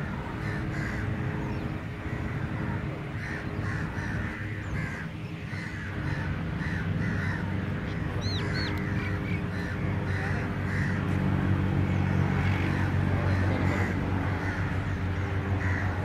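Crows cawing over and over, with a short high chirp from a small bird about halfway through. A low steady drone runs underneath and grows louder in the second half.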